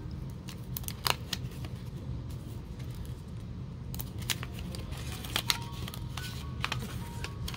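Waxed-paper wrapper of a sealed trading card pack being peeled open by hand, crinkling and crackling in scattered sharp bursts, with a loud crackle about a second in and denser crinkling from about four seconds on, over a steady low hum.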